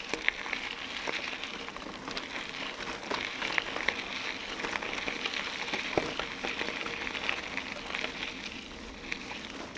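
Bicycle tyres rolling over a rough, unpaved track, a steady crackle thick with small clicks and rattles, with a sharper knock about six seconds in.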